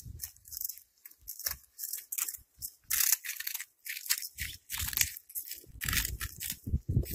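Cats chewing crunchy food pellets: irregular crisp crunches as several eat at once, with a louder cluster about three seconds in.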